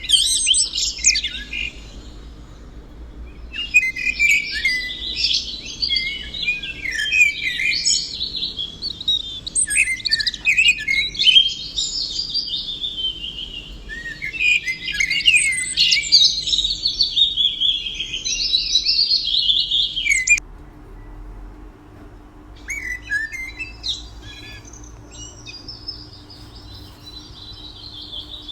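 Songbird singing in long, rapid chirping phrases. The song cuts off suddenly about two-thirds of the way through, followed by fainter scattered chirps and a quieter, more even song.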